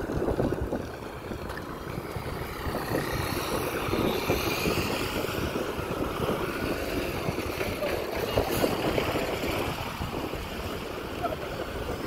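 Wind rushing over the microphone with the rumble of traffic on an unpaved dirt road, as cars and a large lorry drive by.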